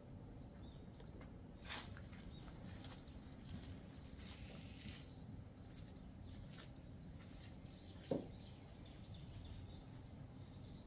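Faint outdoor garden ambience with scattered small bird chirps over a steady low background rumble. A brief soft thump about eight seconds in.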